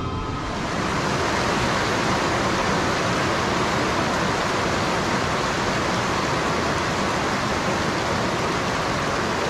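Stream water rushing over rocks in small cascades: a steady, even rush of water, settling in just after the start.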